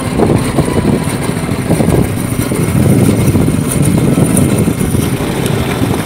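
Fishing boat's engine running steadily, a loud low rumble.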